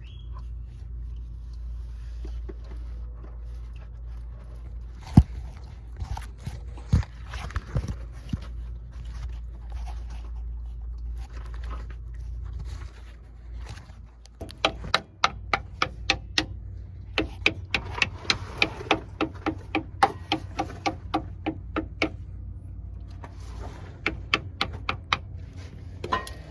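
Metal tools working at the back of an engine block while a rear main seal is fitted. At first there are scattered clicks and knocks, then from about halfway a run of quick, ringing metallic taps comes two to three a second, over a low steady hum.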